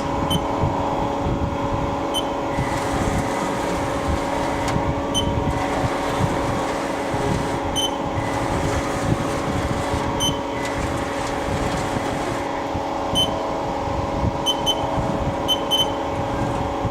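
Haas SL-10 CNC lathe running with a steady hum as its Z-axis carriage is traversed. An added servo and ballscrew hiss comes and goes across most of the span, and short high ticks sound every second or few.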